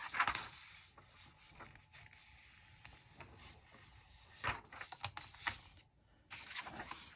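Bone folder rubbing and scraping along paper, scoring fold lines, with paper handling and a few short light knocks in the second half.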